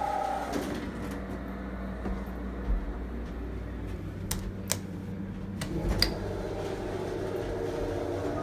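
Steady low hum inside a Schindler hydraulic elevator cab, with a few sharp clicks about halfway through as the car's call buttons are pressed.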